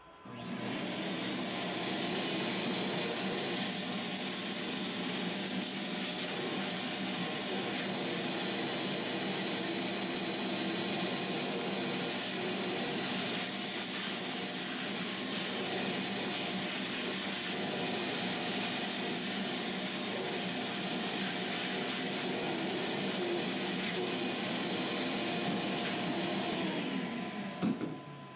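Vacuum cleaner with a crevice nozzle sucking sawdust and wood chips out of a freshly CNC-milled wooden pocket. It starts up right at the beginning, runs steadily, and is switched off near the end, its motor winding down.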